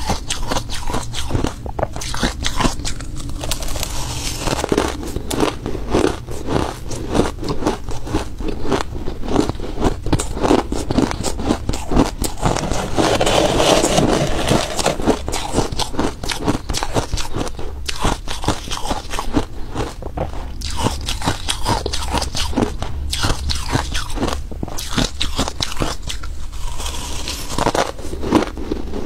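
Close-miked crunching and chewing of crushed, flaky ice taken by the spoonful, a dense run of crisp crunches that swells to its loudest about halfway through.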